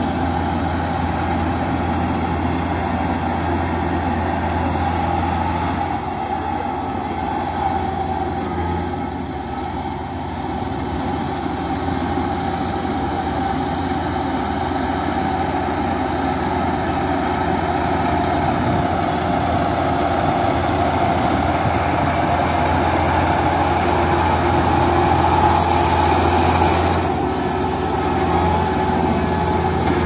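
A rice combine harvester's engine running steadily as the machine cuts paddy: a continuous drone, a little louder toward the end.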